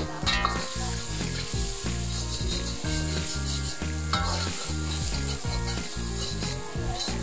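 Corned beef and onions sizzling in a wok over a high gas flame, with a metal spatula scraping and stirring against the pan. A rhythmic background music track plays under it.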